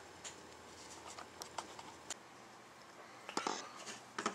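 Scattered faint clicks and taps from a computer mouse being used, with a short, slightly louder rustle about three and a half seconds in.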